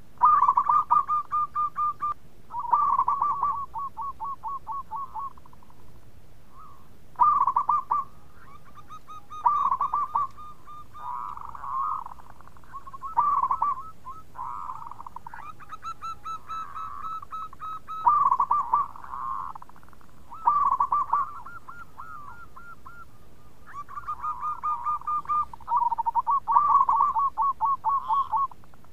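Zebra dove (perkutut) cooing: its rapid, pulsing 'bekur' song phrases, each one to two seconds long, repeated many times with short pauses.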